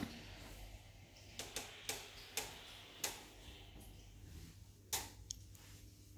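About seven sharp clicks and taps at uneven intervals, clustered in the first half, over a faint low steady hum of room tone.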